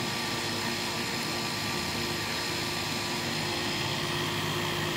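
A steady machine drone with a constant hum, even in level and unchanging in pitch.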